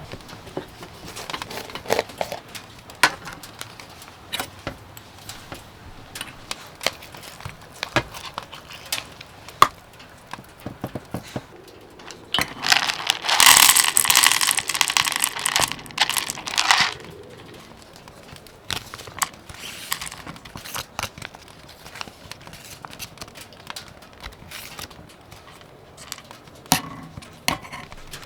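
Crinkling and rustling handling noises with scattered light clicks and knocks, and a louder harsh crinkle or tear lasting about four seconds midway.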